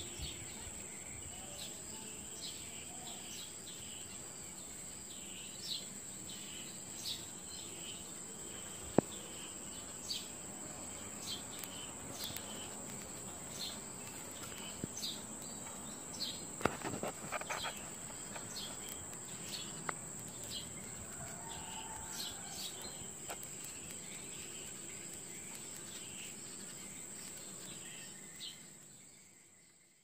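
A steady, high insect drone from crickets or cicadas, with short high bird chirps scattered over it. The sound fades out near the end.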